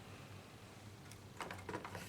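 A quick cluster of light clicks and taps, typical of small hard laptop parts being handled, about one and a half seconds in, over a faint steady hum.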